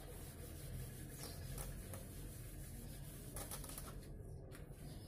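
Faint swishing and scraping of a duster wiping a whiteboard clean, a few strokes that stop a little before the end, over a low steady room hum.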